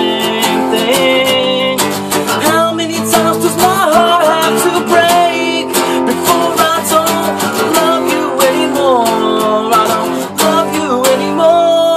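Acoustic guitar strummed in a steady rhythm, with a man's voice singing a melody over it.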